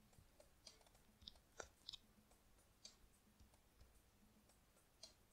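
Near silence: room tone with a few faint, short clicks about one and a half to two seconds in.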